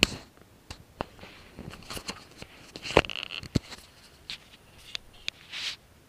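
Handling noise from fingers on a Drift Ghost-S action camera, close to its microphone: about a dozen irregular sharp clicks and knocks, the loudest about three seconds in, with soft scrapes and rubbing between.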